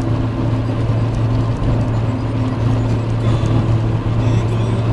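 Steady cabin noise of a Renault Clio cruising at motorway speed: a constant low engine drone under the rush of tyres and wind.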